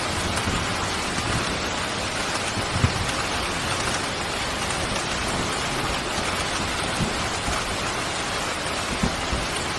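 Steady, heavy rain falling, with a few brief low taps of heavier drops, the loudest about three seconds in.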